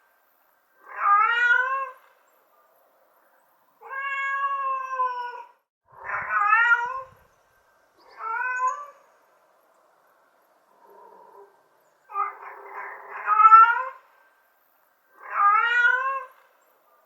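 Domestic cat meows, one after another: about seven separate calls with silent gaps between. Most are short, with the pitch sweeping up and then down. Two are drawn out, and one is faint.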